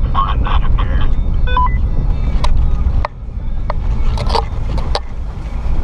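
Steady low rumble of a 2006 Jeep KJ with 3-inch lift driving slowly over a rough dirt trail, with several sharp knocks and rattles from bumps in the second half.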